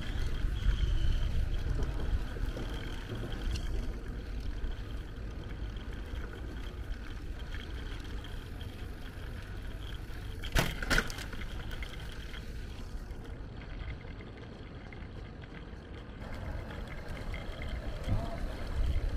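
Riding noise from a bicycle: wind buffeting the handlebar-mounted camera's microphone over the rumble of the tyres on the street, with a single brief knock a little over ten seconds in.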